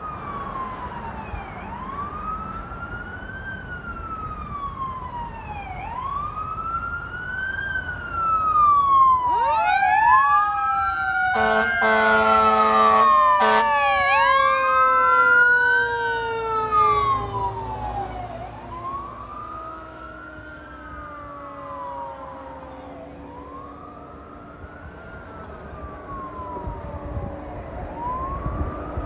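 Fire engine siren wailing in slow rising and falling sweeps. About nine seconds in, a second siren tone rises, then falls slowly over the following ten seconds. Around twelve seconds in a steady horn blast sounds for about two seconds. The sound is loudest as the engine passes close and eases off as it drives away.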